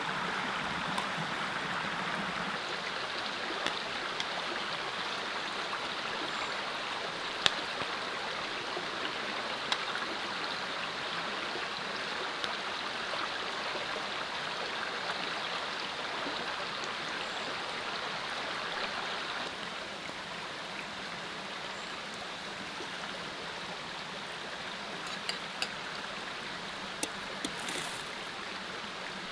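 Small mountain creek running over rocks, a steady rushing of water that eases slightly about two-thirds of the way through. A few faint sharp clicks sound over it, most near the end.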